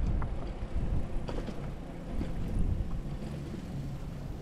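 Brompton folding bicycle being ridden: a steady low rumble of tyres and wind on the microphone, with scattered light clicks and rattles.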